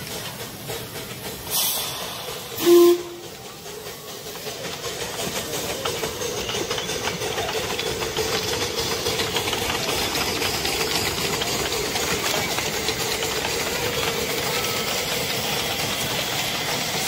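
Miniature steam locomotive hauling a passenger train past, its steam hiss and the clatter of wheels on rail building up from about four seconds in and then holding steady. A brief, loud tone sounds about three seconds in.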